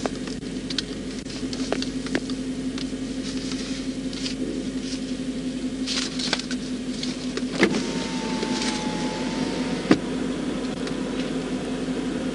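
A vehicle engine idling steadily, a low even hum, with a few sharp clicks, the loudest about seven and a half and ten seconds in.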